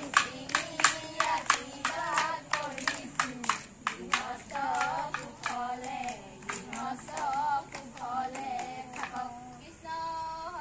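A group of women and girls singing a Bihu song together, clapping their hands in a steady beat of about two to three claps a second; the claps die away near the end while the singing goes on.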